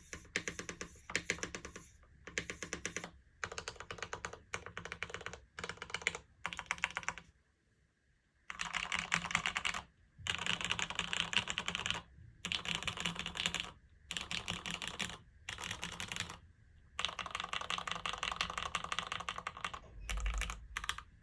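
Typing on a SINGAKBD Jaguar V1 tenkeyless mechanical keyboard with lubed Gateron Oil King linear switches on a 2 mm aluminium plate and GMK keycaps. Quick runs of keystrokes come in bursts with short breaks and a pause of about a second a third of the way in; after it the typing is faster and denser.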